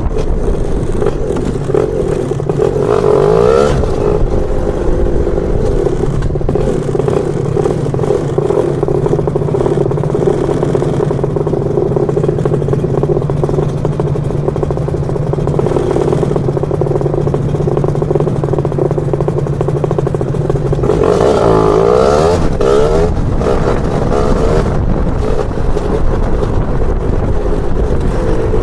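Lambretta scooter's BFA 325 two-stroke engine running under way. It holds a steady pitch for long stretches, with the revs rising and falling about three seconds in and again from about twenty-one seconds in.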